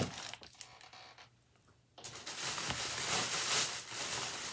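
Plastic bag rustling and crinkling as it is handled. It fades to near silence for a moment, then starts again suddenly about two seconds in.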